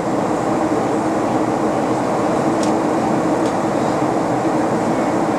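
Steady in-flight cabin noise of an airliner: jet engine and airflow rush heard from inside the cabin, with a constant low hum and a faint tick about two and a half seconds in.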